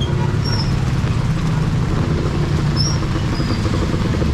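A motor vehicle's engine running steadily close by, a low rumble, with a few faint short high chirps above it.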